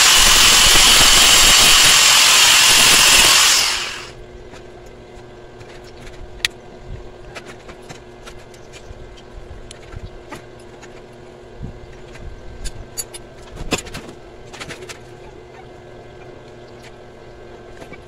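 Handheld angle grinder running loud against a small metal part, then switched off and spinning down about three and a half seconds in. After that come scattered light clicks and knocks of metal parts being handled.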